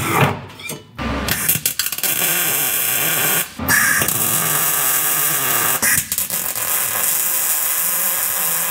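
Electric welding arc on steel roll-cage tube, a steady crackling hiss that runs in long beads and breaks off briefly twice. A short burst of drilling comes first.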